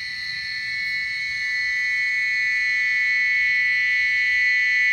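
Rainforest insect chorus: a steady, high-pitched buzzing drone that grows louder over the first couple of seconds.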